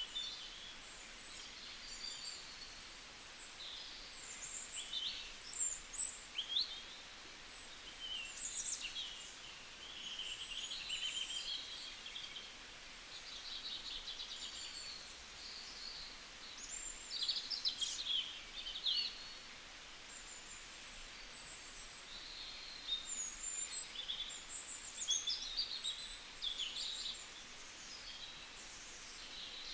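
Several small birds chirping and trilling in short, high-pitched phrases, some overlapping, with a faint steady hiss of ambience underneath.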